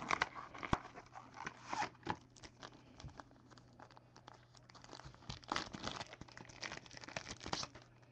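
Trading-card pack wrapper crinkling and tearing as it is opened by hand, with scattered clicks and rustles of handling the card inside.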